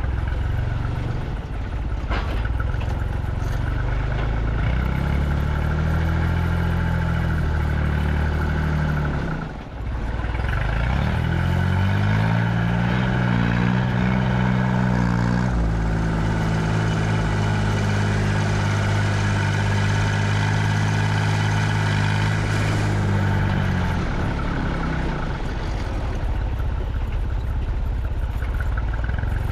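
Truck engine pulling away: its pitch climbs, breaks off for a moment about nine and a half seconds in as if on a gear change, climbs again and holds steady for several seconds, then eases off near the end.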